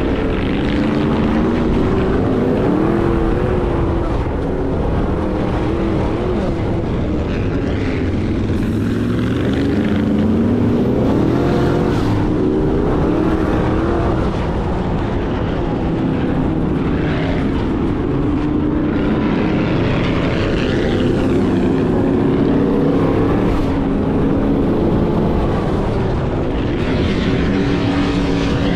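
Sand rail engine running hard, its pitch rising and falling again and again as the throttle changes over the dunes, over a continuous rushing noise.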